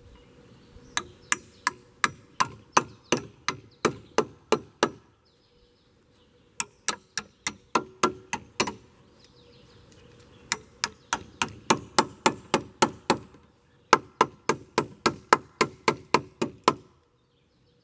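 An axe used as a hammer striking the steel tabs of a Simpson Strong-Tie joist bracket to bend them under: four runs of quick, sharp metal-on-metal strikes, about three a second, with short pauses between runs.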